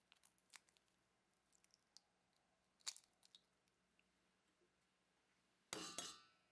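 Eggs being cracked and separated by hand over bowls: small clicks and taps of eggshell, a sharp crack about three seconds in, and a short louder clatter against the bowls near the end.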